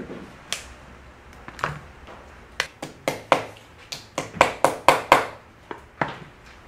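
Hammer striking a tool on fabric laid over a stone slab: a string of sharp, irregular knocks, coming faster and loudest in the middle of the stretch.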